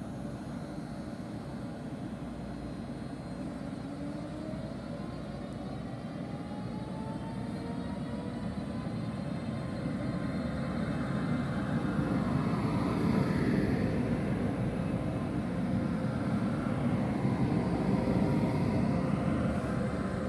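Taiwan Railway EMU500 electric multiple unit pulling away: its inverter and traction motors whine in several tones that rise in pitch as it accelerates. The running noise grows louder from about ten seconds in as the cars pass close by.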